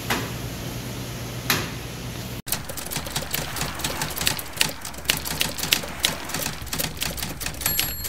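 Supermarket background hum with a single sharp click for the first couple of seconds. Then, after an abrupt cut, a typewriter sound effect of rapid, irregular key clacks, with a brief high ring near the end like a typewriter's bell.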